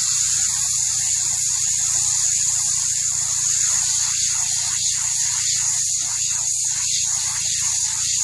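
Soft-wash spray rig on its low-pressure setting, spraying water steadily onto a piece of styrofoam with a loud, even hiss.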